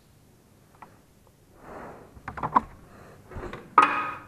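A steel ring spanner, nut and washer clicking and clinking as they are handled and fitted onto a scooter's shock-absorber top-plate bolt. A few light clicks come first, then a quick run of clinks, and near the end a louder metal clink that rings briefly.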